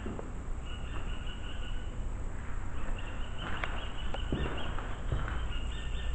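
Insects trilling outside in steady high-pitched stretches that stop and start, over a low rumble, with a few sharp clicks from footsteps or handling.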